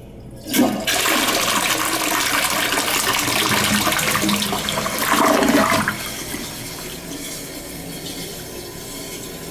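Crane Plumbing Atlas toilet flushing: a sudden rush of water about half a second in, loud swirling water with a louder surge shortly before it eases off around six seconds in, then quieter steady running water as the bowl refills.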